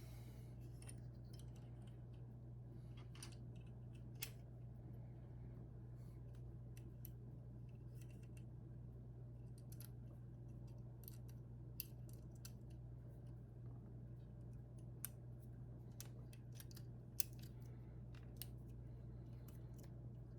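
Scattered light clicks and taps of small model-kit parts being handled and fitted together, with a few sharper clicks about 4, 12, 15 and 17 seconds in, over a steady low hum.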